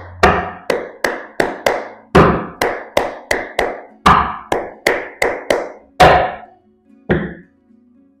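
A rapid run of sharp knocks, about four a second in short groups, each ringing briefly. It stops about six seconds in, with one last knock about a second later.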